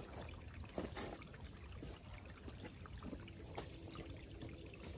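Quiet woodland ambience with scattered faint rustles and crackles in dry leaf litter.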